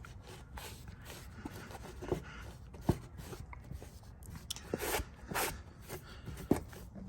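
Hand-cleaning the licence plate light housing on a Chevy Tahoe: wiping strokes with scattered light clicks and knocks of handling the plastic trim.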